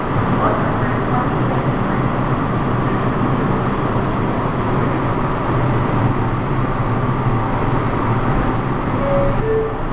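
Steady running noise of an R142 subway train heard from on board: a loud, even rumble of wheels on rail with a low drone. Two brief high squeaks come near the end, the second a little lower.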